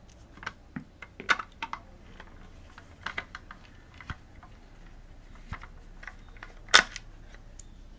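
Scattered light clicks and taps of a Torx screwdriver working screws loose from the hard drive's metal bracket, with one sharper click about seven seconds in.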